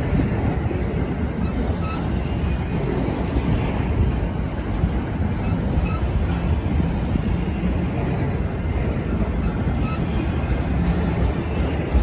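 Autorack freight cars of a CN freight train rolling past close by: the steady noise of steel wheels running on the rails and the cars rattling, with a few faint, brief squeaks.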